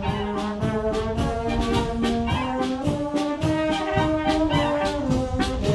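Marching brass band playing, with flugelhorns and tenor horns sounding together over a steady beat.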